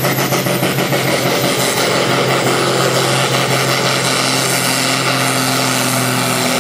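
New Holland pulling tractor's diesel engine running flat out under full load while dragging a weight-transfer sled. It throbs rapidly for about the first second, then settles into a steady, loud drone.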